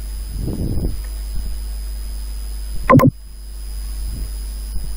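Steady low electrical hum of the recording, with a soft, brief voice sound about half a second in and a short, louder vocal sound around three seconds in.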